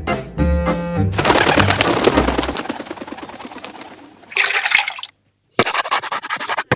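Brass swing music ends about a second in, followed by cartoon sound effects: a rapid rattling that fades away over about three seconds, a short burst of hiss, then after a brief silence another quick rattling sound.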